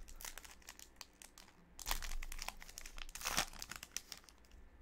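Baseball card pack wrapper crinkling as it is torn open and the cards are pulled out, with louder crinkles about two seconds in and again a little after three seconds.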